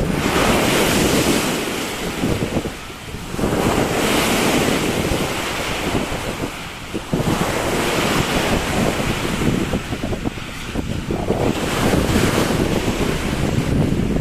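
Surf washing onto a beach with wind buffeting the microphone; the noise of the waves swells and eases every three to four seconds.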